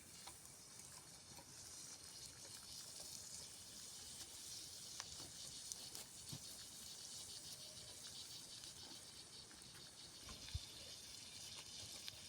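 Chicken livers frying in a dish over a wood fire: a faint, steady sizzling hiss with a few soft clicks.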